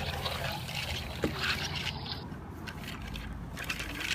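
Plastic pull-along toy train rolling and rattling as it is dragged over the ground, with a few sharp clicks.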